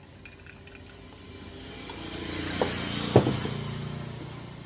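A motor vehicle passing by: its noise swells to a peak about three seconds in and then fades. Two sharp clicks come close together near the peak.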